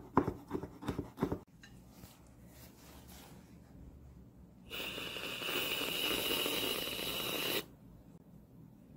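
A knife chops on a wooden cutting board in quick strikes for about the first second and a half. About five seconds in, an aerosol can of whipped cream sprays with a steady hiss that lasts nearly three seconds and cuts off abruptly.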